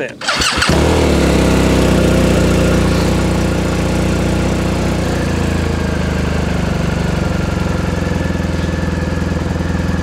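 BMW R1250GS Adventure boxer-twin engine, fitted with a factory catted header and a Jekill & Hyde valved exhaust, starting up with a short crank about half a second in. It runs a little higher for the first few seconds, then settles into a steady idle with the exhaust valve closed.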